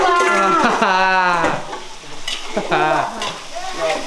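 Food sizzling as it is stir-fried in a wok, stirred with a metal spatula. A woman's voice, drawn out in pitch, sounds over it in the first second and a half and again shortly after halfway.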